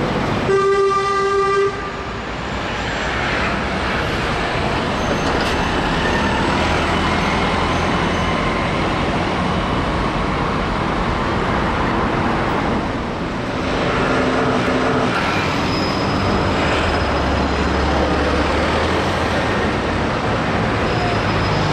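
Road traffic with double-decker buses passing through a junction. A vehicle horn gives one toot about a second long near the start.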